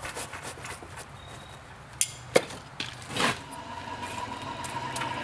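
A few sharp knocks and clinks of tools being handled, the loudest about two and a half seconds in, over a low steady hum, with faint quick ticking near the end.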